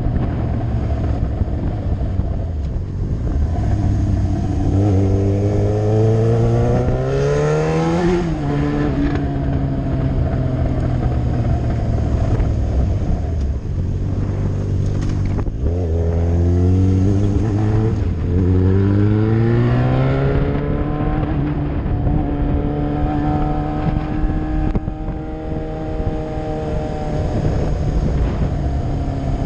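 Yamaha R6 inline-four engine under way, rising in pitch twice as it accelerates, dropping sharply after the first climb, then holding a steady cruising note.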